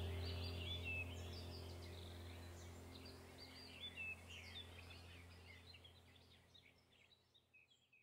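Small birds chirping and twittering over a low steady drone, the whole soundscape fading out gradually to silence.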